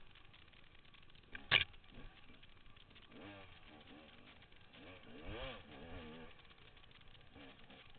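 Dirt bike engine, faint, revving up and falling back twice as it rides a rough trail. There is a single sharp knock about a second and a half in.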